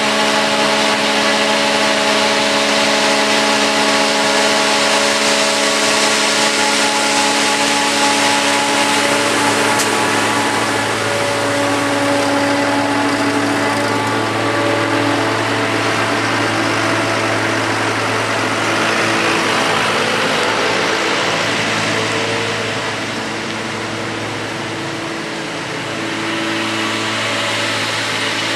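A forage harvester chopping whole-crop silage and a Fendt tractor pulling a silage trailer alongside it, their engines running steadily under load with a broad hiss over several steady engine tones. The sound dips slightly about three-quarters of the way through.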